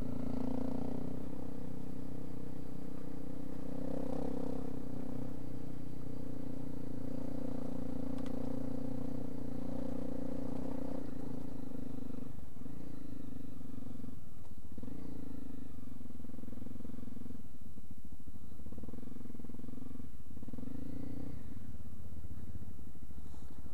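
Trail motorcycle engine running at a steady pace, with the revs dropping and picking up again several times in the second half as the bike slows on the dirt track.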